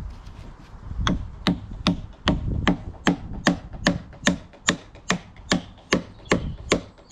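Hammer driving an oak peg into a drawbored joint of a larch timber frame: steady, evenly spaced blows, about two and a half a second, starting about a second in.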